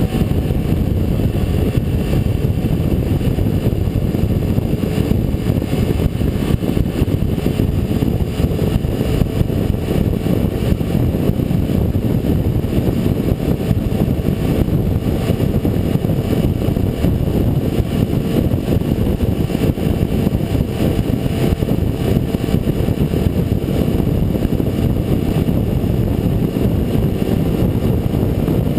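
Steady rush of wind and road noise from a 2005 Honda CBR600F4i cruising at highway speed, with its inline-four engine running steadily underneath, heard from a microphone mounted low on the bike.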